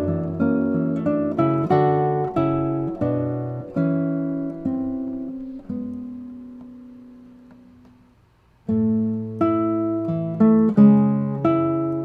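Nylon-string classical guitar played solo, a plucked melody over bass notes. About six seconds in, a held note rings and fades almost to silence, and the playing resumes loudly less than a second later.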